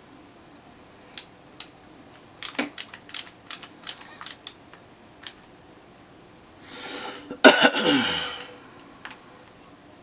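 Small sharp clicks and taps, about a dozen spread over a few seconds, from a screwdriver putting back and tightening the handle screws of an OTF knife. Then a loud cough about seven and a half seconds in.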